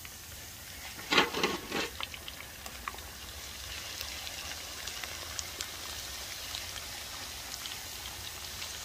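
Dried rice cakes deep-frying in hot oil, a steady sizzle with small crackles. A loud burst of sizzling comes about a second in.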